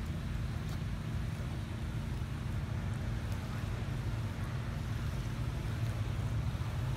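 Steady low rumbling noise.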